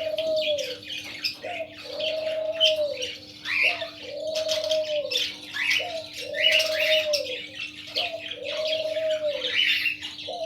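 A dove coos over and over, a short rising note followed by a longer drawn-out one, about every two seconds. Parrots chirp and squawk around it, and a steady low hum runs underneath.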